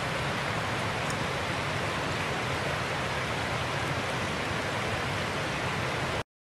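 Creek water rushing steadily over rocks and shallow riffles, an even hiss that cuts off suddenly near the end.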